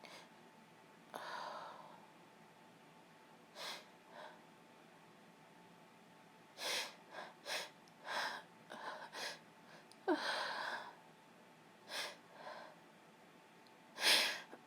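A sick woman sneezing again and again: a string of short, sharp sneezes of varying strength with breaths between them, the loudest sneeze coming near the end.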